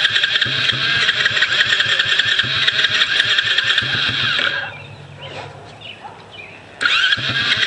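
Loncin 110 cc four-stroke ATV engine cranking on its electric starter: a steady starter whine over a rhythmic chug of compression strokes, with the engine not catching. It stops for about two seconds past halfway, then cranks again near the end. The engine is trying to fire now that it has spark.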